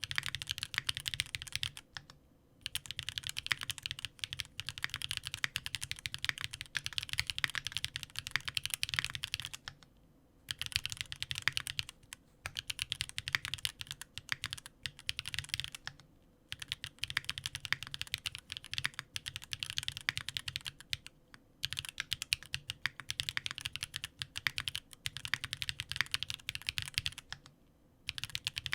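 Fast typing on a Sangeo65 65% aluminium mechanical keyboard with stock Magma linear switches, an aluminium plate, plate foam and GMK keycaps: a dense run of key clacks, broken by short pauses every few seconds.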